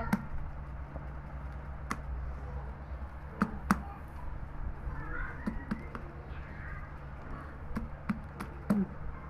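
A metal blade clicks and taps against small chunks of roasted edible clay as they are chopped and pushed across a sack. There are a handful of separate sharp strikes, two close together a few seconds in and another near the end, over a steady low hum.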